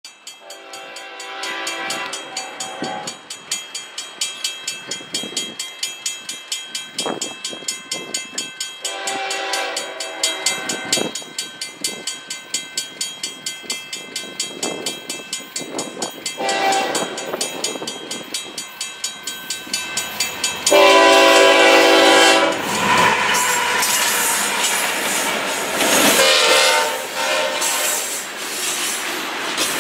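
A grade-crossing bell rings steadily while an approaching freight train, led by a GE ES44AC with an EMD SD38-2, sounds its horn in the long-long-short-long crossing pattern. The last blast is the loudest as the locomotives pass. Then the diesels rumble by and the freight cars follow with wheel clatter.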